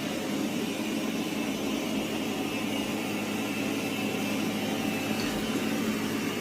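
Robot vacuum cleaner running: a steady motor whir with a thin high whine over it.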